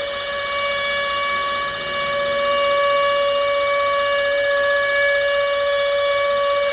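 Civil defense siren wailing at a steady, held pitch.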